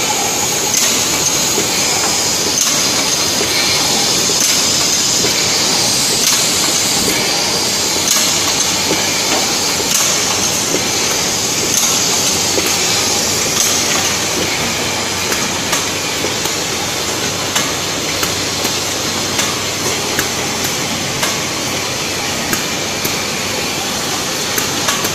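Automatic bottle filling and capping machine running: a steady mechanical clatter with a hiss of compressed air. In the second half, regular knocks come about five times every four seconds as the machine cycles.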